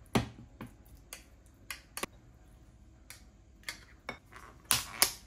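A metal fork clinking and tapping against ceramic bowls as food is scooped into a rice bowl. About ten sharp, irregular clicks, with the loudest pair near the end.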